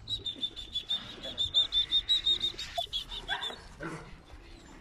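Dogs crowding round a person in excited greeting: a fast run of short, high-pitched squeals at an even pitch, about five a second, that stops about three and a half seconds in, with scattered clicks.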